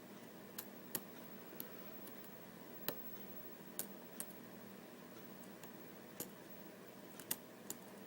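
Small sharp clicks of a lock pick working the pin stacks of a security-pinned mortise cylinder during single-pin picking, about nine of them at irregular intervals.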